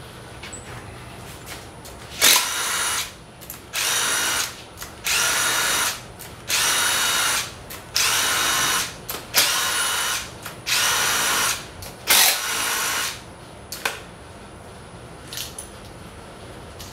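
Cordless DeWalt power driver spinning bolts out of a Gen 4 6.2 LS engine during teardown, in about eight short runs of roughly a second each with brief pauses between them. A few light clicks fall in the gaps and near the end.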